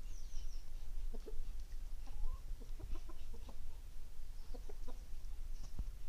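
Chickens clucking: short low clucks in small clusters about a second in, around three seconds in and near five seconds, with a few faint high chirps over a steady low rumble.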